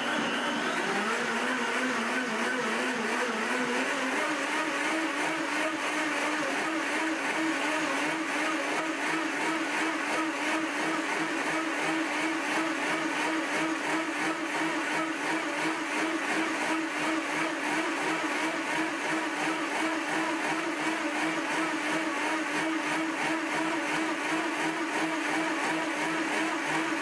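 Blendtec Total Blender's 3 hp direct-drive motor running the pre-programmed smoothie cycle, blending a smoothie in its square jar, loud. Its pitch dips about a second in, then climbs over the next few seconds to a higher speed, which it holds steadily: the cycle stepping through different speeds.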